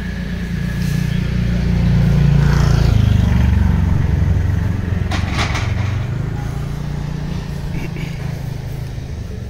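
Engine of a road vehicle running close by, swelling to its loudest two to four seconds in and then fading as it moves off. A short crackle comes about five seconds in.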